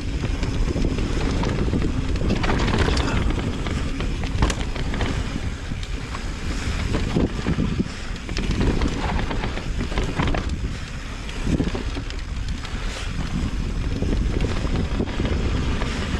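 Wind rushing over the microphone of a mountain bike ride, over the low rumble and rattle of the bike rolling on a dirt trail, with occasional sharp knocks.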